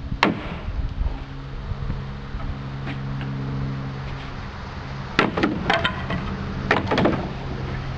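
Sharp wooden knocks and cracks of a deck railing's balusters being struck and forced loose: one blow just after the start, then a quick run of several about five seconds in and a few more about a second later. A steady low hum runs underneath.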